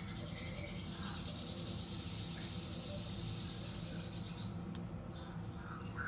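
Umbrella cockatoo chick making a high, raspy hissing begging sound that fades after about four seconds, with a squawk starting right at the end.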